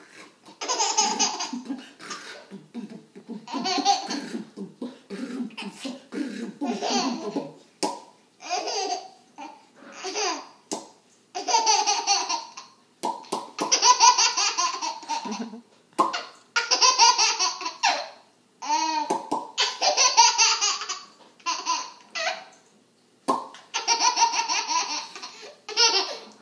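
A baby laughing hard in repeated bouts, each a second or two long, with short breaks between.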